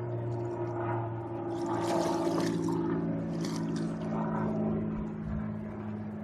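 A hooked carp splashing and thrashing at the water's surface a few times as it is reeled in, over a steady low engine hum.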